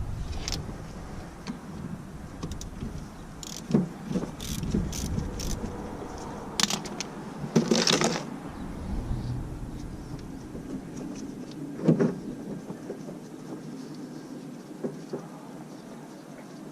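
Scattered clicks and clanks of hand tools and metal parts being handled at a car's rear brake caliper, a few sharper knocks among them, over a steady low background noise.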